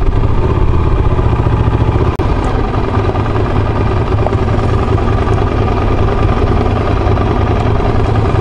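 Ducati motorcycle engine running steadily at low revs while riding a gravel track, with wind noise over the microphone. The sound drops out sharply for a moment about two seconds in.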